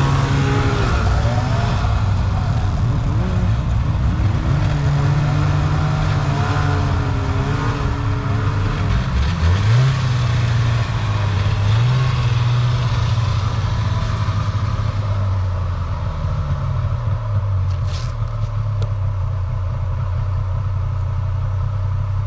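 Snowmobile engines running: a steady idle underneath, with engine revs rising and falling, and two quick climbs in pitch about ten and twelve seconds in.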